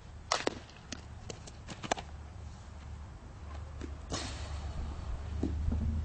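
Scattered sharp clicks, then a louder crack about four seconds in, over a steady low wind rumble on the microphone at an outdoor softball field.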